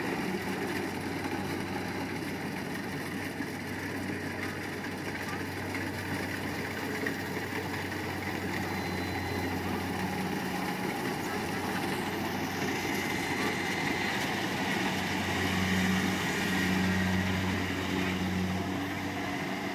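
Kubota crawler combine harvester running steadily as it harvests rice, a continuous engine hum with machinery noise that swells a little louder about two-thirds of the way through.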